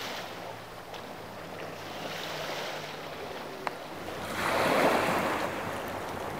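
A small boat's outboard motor running with a low steady hum over water noise. About four seconds in, a louder rush of water and wind swells for about a second, then eases back.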